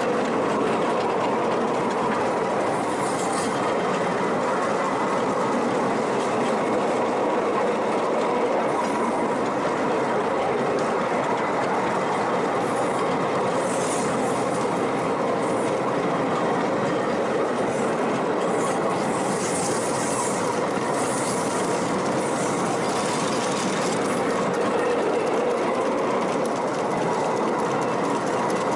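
Miniature ride-on steam train running steadily, heard from a passenger carriage: a constant rumble and clatter of small wheels on the track, with a few brief high-pitched noises now and then.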